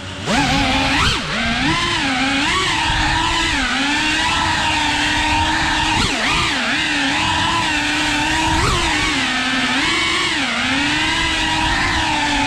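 FPV quadcopter's electric motors and propellers whining steadily, the pitch dipping and swooping up and down every second or two as the throttle changes.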